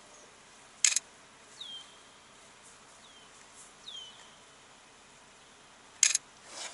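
Birds calling: two short, high buzzy notes, about a second in and near the end, with three or four short down-slurred chirps between them.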